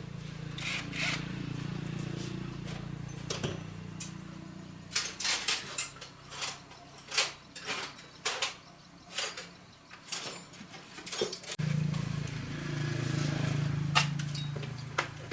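A small motor runs steadily for about four seconds and stops, followed by a run of sharp metallic clinks and taps from tools and metal parts being handled. The motor starts again about twelve seconds in.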